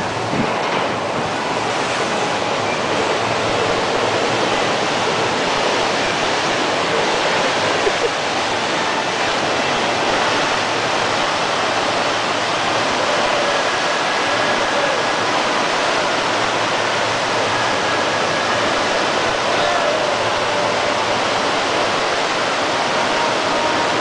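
Whitewater rushing down the concrete channel of a river rapids ride, a steady loud rush of churning water.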